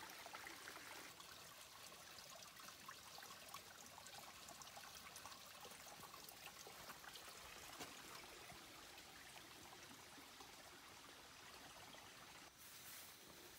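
Faint trickle of a small stream running among mossy boulders.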